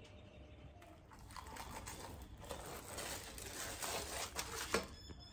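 Plastic packaging crinkling and crackling as it is handled, with a sharp knock near the end.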